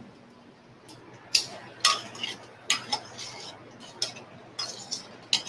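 Metal tongs clinking and knocking against a stainless-steel sauté pan while noodles are tossed in it, about seven sharp clinks spaced irregularly.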